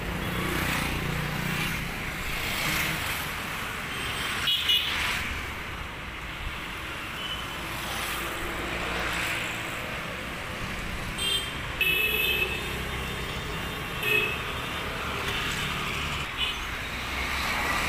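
Street traffic: motorcycles, scooters and cars passing one after another, the engine noise rising and falling as each goes by. Short horn toots sound about four and a half seconds in, several times around eleven to twelve seconds, and once more about fourteen seconds in.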